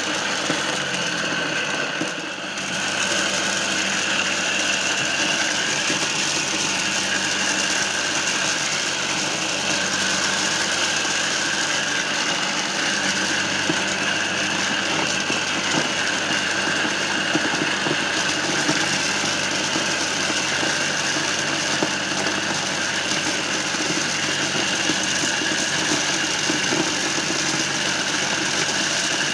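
Homemade mini corn sheller, its drum belt-driven by a second-hand water-pump electric motor, running steadily as cobs are fed in and stripped, kernels rattling through the wooden housing. The level dips briefly about two seconds in.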